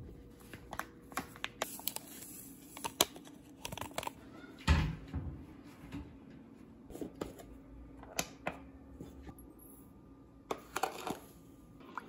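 Scattered light clicks and taps of kitchen utensils and bowls being handled while baking ingredients are measured, with one duller knock about five seconds in and a quick run of clicks near the end.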